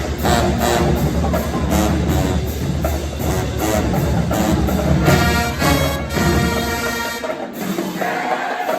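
Loud music with drums keeping a steady beat; the deep bass drops out about seven seconds in.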